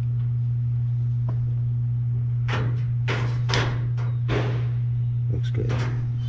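A steady low machine hum, with a run of short knocks and rustles from about two and a half seconds in to near the end.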